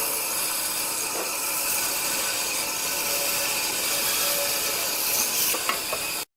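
Wood lathe running with a turning tool cutting the spinning wood: a steady rasping hiss with a few sharp clicks near the end, then the sound cuts off suddenly.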